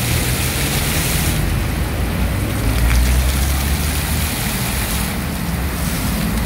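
Decorative fountain jets spraying and splashing into a stone basin: a steady hiss of falling water that thins out about a second in and comes back near the end. Under it is a low rumble of passing traffic.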